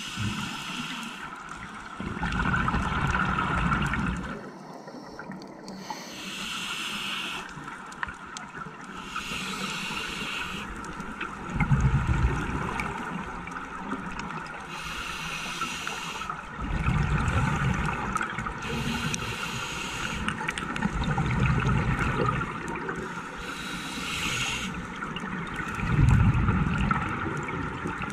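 Scuba diver breathing through a regulator underwater: hissing inhales alternate with loud bursts of rumbling exhaled bubbles, about five breaths, heard through a camera housing.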